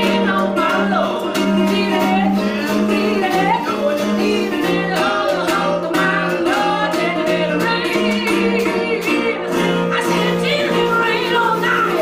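Live acoustic blues song: singing over a strummed acoustic guitar, with a washboard scraped and tapped in a steady rhythm.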